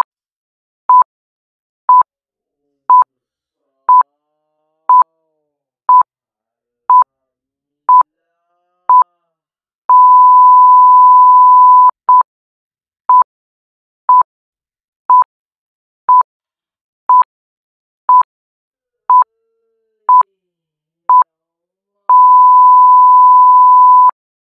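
Loud electronic beeps at one steady pitch: ten short beeps one second apart, then a long tone of about two seconds, then ten more short beeps and a second long tone, with silence between them.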